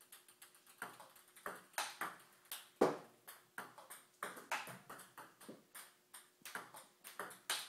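Table tennis forehand rally: the ball clicking off the paddles and bouncing on the table in a quick, even run of knocks, several a second, with one louder hit about three seconds in.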